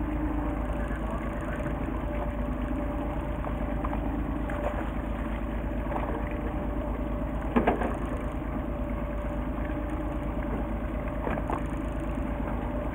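Fishing boat's engine running steadily at idle, a constant drone with a low rumble. A single sharp knock about seven and a half seconds in.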